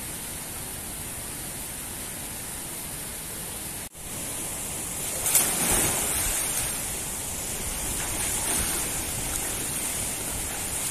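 A person diving into a swimming pool: one loud splash about five seconds in, then water sloshing, over a steady hiss.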